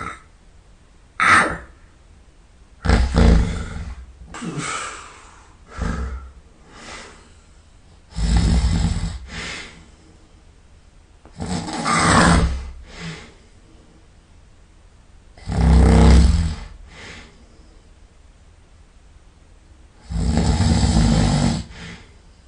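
A person snoring loudly in sleep: five long snores about four seconds apart, with shorter, softer breaths between them.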